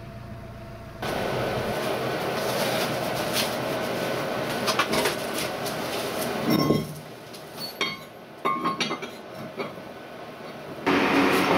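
Metal clinks and knocks as new steel pins are handled and fitted into a T-40AM tractor's front axle housing, over a steady rushing background noise that starts about a second in. There is a short falling scrape about two-thirds of the way through, and a few ringing clinks after it.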